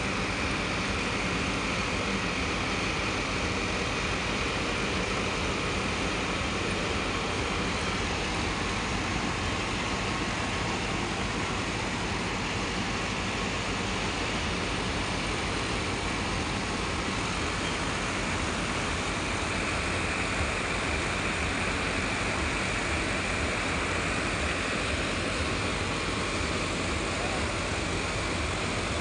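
Several tractor diesel engines running steadily together, driving rotavators.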